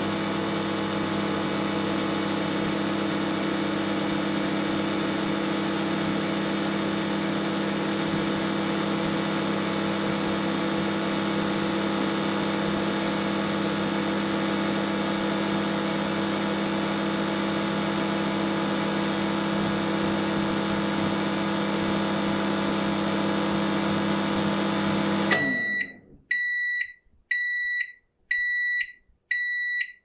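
Microwave oven running with a steady hum, which cuts off abruptly as the timer reaches zero. Then five short, high beeps about a second apart, the end-of-cooking signal.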